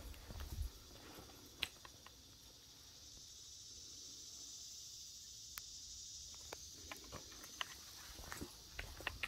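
A faint, steady high-pitched insect drone that swells through the middle and fades, with scattered light footsteps and ticks on wooden boards and sandy ground.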